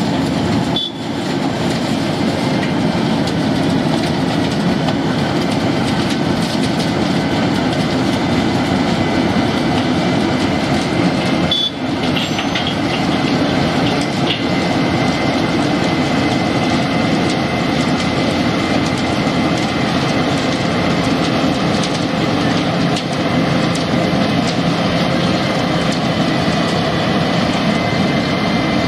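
Wirtgen W220 cold milling machine cutting away a 15 cm deep asphalt layer: a steady, loud grinding rumble of the milling drum and diesel engine, with the milled asphalt carried up the conveyor into a tipper truck.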